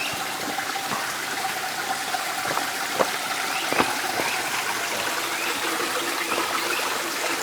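Small woodland stream trickling and splashing over rocks, a steady rush with scattered sharp little ticks.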